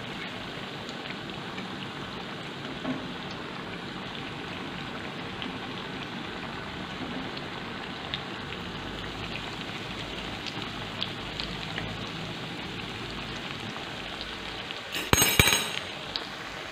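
Hot oil sizzling and crackling steadily as piped semolina dough sticks deep-fry in a pan, with light clinks of a metal fork turning them. About 15 seconds in, a brief loud clatter.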